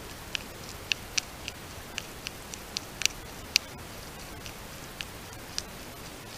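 Porcupine chewing milkweed leaves: about a dozen irregular crisp crunches over the steady hiss of a trail camera's microphone.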